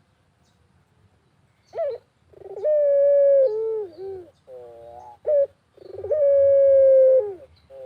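Puter dove (domestic collared dove) cooing. About two seconds in comes a short note, then two long coos, each opening with a rolling trill, held on one steady note and dropping in pitch at the end, with fainter shorter notes between them.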